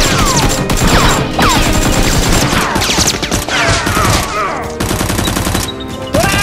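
Rapid gunfire sound effects, many shots in quick succession, with whistling sounds that fall in pitch between the shots.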